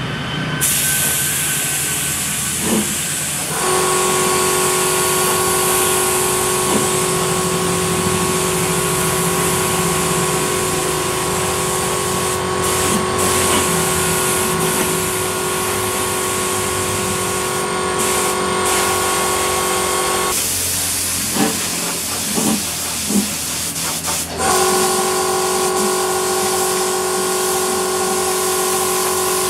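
Gravity-feed spray gun hissing steadily as compressed air sprays the final clear matte coat onto a fuel tank. A steady hum of several tones joins about three and a half seconds in, drops out for about four seconds near twenty seconds in, then returns.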